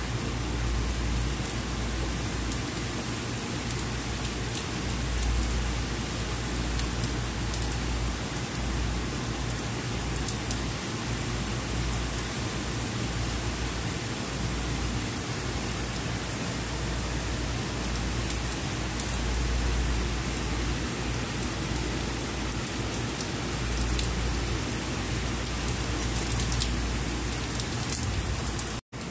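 Steady rain falling on a city street, an even hiss with a low rumble underneath. The sound cuts out abruptly for a moment near the end.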